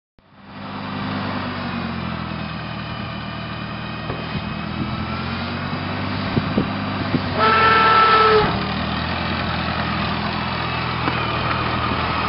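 Massey Harris Pony tractor's small four-cylinder engine running steadily as the tractor is driven slowly forward. A little past halfway a horn honks once for about a second, louder than the engine.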